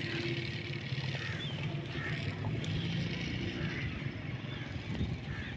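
A steady low engine hum, with a few faint high bird chirps.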